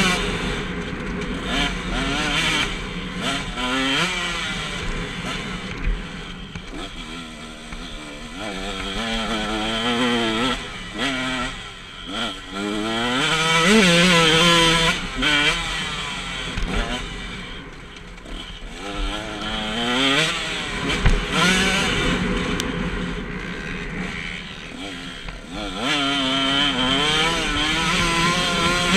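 KTM 125 SX two-stroke single-cylinder motocross engine under hard riding. It repeatedly revs up through the gears in rising climbs, then drops back as the throttle is rolled off before revving again.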